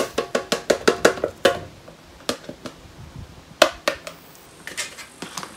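Herbicide granules being tipped into a container: a quick run of sharp clicks and taps in the first second and a half, then scattered single taps, several with a short ring.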